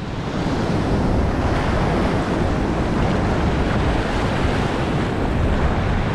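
Surf washing and breaking on a sandy beach, with wind buffeting the microphone.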